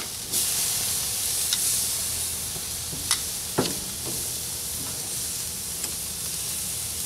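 Steak and shrimp sizzling on a grill grate over live coals: a steady searing hiss that swells about a third of a second in as the steaks are turned. A few sharp clicks of tongs on the grate.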